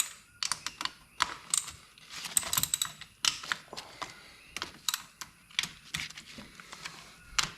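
Hand socket ratchet clicking in short irregular runs, with light metal clinks, as the 8 mm bolts around a Honda Grom's clutch side cover are loosened.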